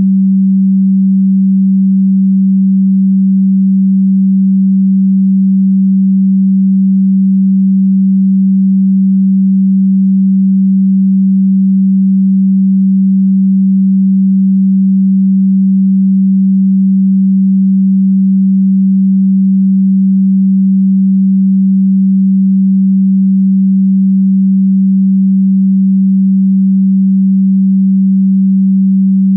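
Electronically generated pure sine tone, a steady low hum held at one pitch without any change.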